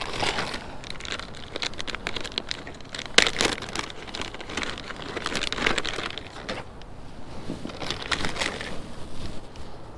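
Close handling noise of fishing tackle: irregular rustling, crinkling and small clicks as hands work fishing line and a lure, with a sharper click about three seconds in.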